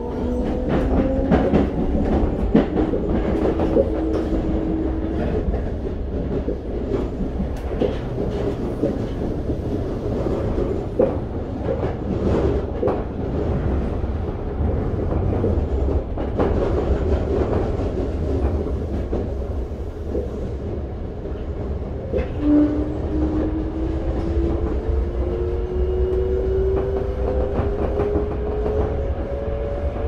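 Toei 5300 series train's Mitsubishi GTO-VVVF inverter and traction motors heard from inside the car. An electric whine rises in pitch and dies away about five seconds in. The train then runs on with a steady rumble and wheel clatter over the rail joints. From about 22 seconds a new whine starts low and climbs steadily as the train powers again.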